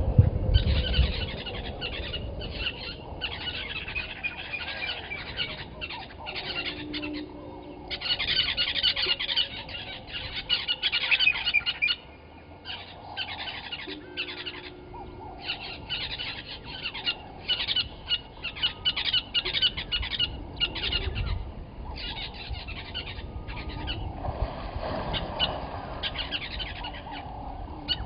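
Morning bird chorus of African bushveld birds: many birds chirping and calling in quick, dense runs of high notes, with short pauses between runs. A brief low rumble comes near the end.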